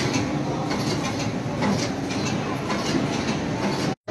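Commercial kitchen machinery running with a steady rushing clatter.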